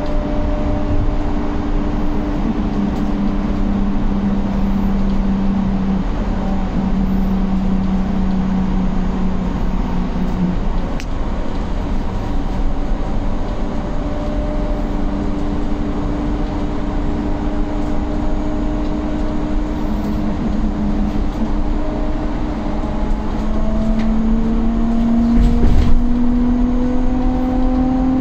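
Solaris Urbino 9 LE electric bus heard from inside while driving: the electric drive's whine sits over road and tyre rumble. The whine holds steady, then rises in pitch near the end as the bus speeds up. A low thump, the loudest moment, comes shortly before the end.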